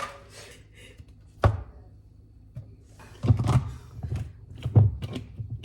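A single sharp knock, then about two seconds later a run of heavy thumps and clunks.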